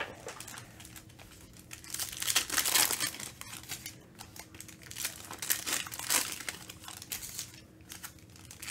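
Foil trading-card pack wrappers crinkling as a stack of packs is handled and laid out on a table, in irregular bursts, loudest about two to three seconds in.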